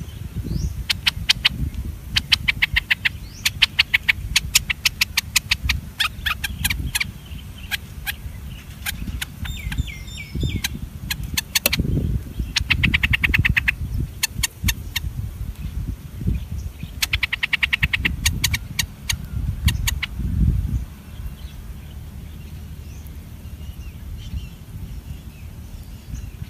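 Bulbuls calling at the nest: bursts of rapid, high chittering notes, each lasting one to two seconds and repeating several times over the first twenty seconds or so, with a few short chirps between them. A low rumble sits underneath and eases after about twenty seconds.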